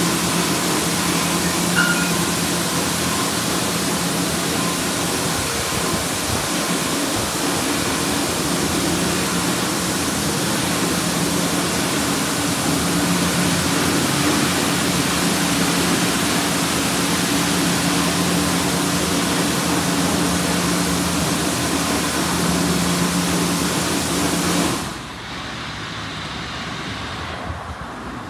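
Ryko SoftGloss Maxx 3 touch-free car wash spraying high-pressure water over a car: a steady hiss of spray with a low pump hum underneath. About 25 seconds in, the spray cuts off suddenly and it goes much quieter.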